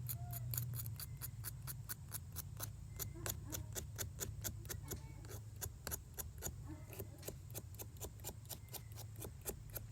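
Razor blade scraping corrosion off fanned-out copper wire strands, a quick run of short, even scrape strokes about four a second, cleaning the wire for soldering. A steady low hum lies underneath.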